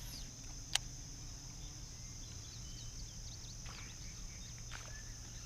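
A steady high-pitched insect chorus, with a few short bird chirps scattered through it and one sharp click under a second in.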